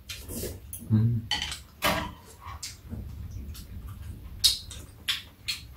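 Eating at a table: chopsticks and a metal spoon clicking and scraping against ceramic bowls and a plastic food container, with chewing and mouth noises. The clicks are short and sharp, louder about two seconds in and twice near the end.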